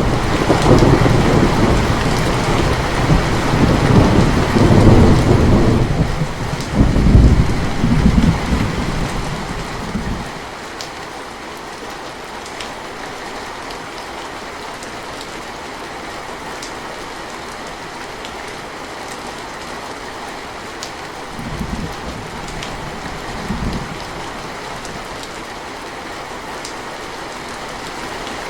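Steady rainfall with a long rolling peal of thunder over the first ten seconds or so, then the rain alone, with two short, fainter thunder rumbles later on.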